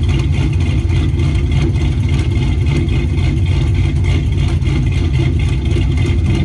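Two Chevrolet pickup truck engines idling together in the cold just after being started, a loud, steady exhaust rumble with an uneven pulse.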